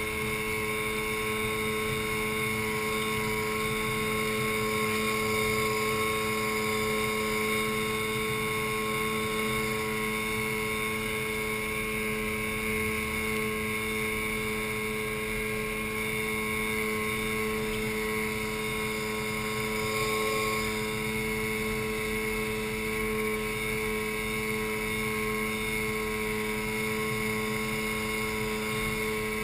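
Outboard motor of an inflatable boat running at steady cruising speed, a constant drone whose pitch does not change.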